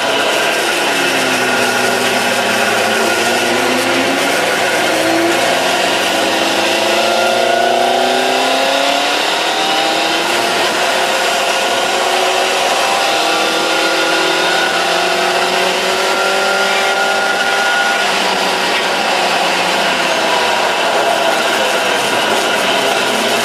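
Honda Hornet 900's inline-four engine heard from on board the motorcycle at speed, its pitch rising and falling repeatedly as the rider accelerates and backs off through the corners, under a steady rush of wind on the microphone.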